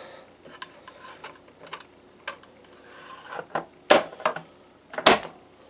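Blue plastic housing cover of a Yihua 939D soldering station being handled and fitted back onto its base: light clicks and rattles, then two louder knocks about four and five seconds in.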